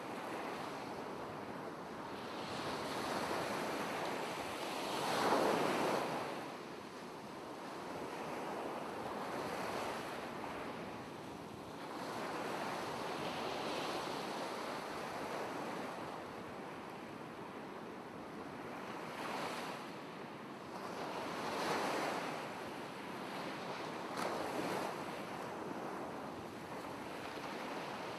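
Ocean waves washing in, a steady rush that swells and falls back every several seconds, the biggest swell about five seconds in.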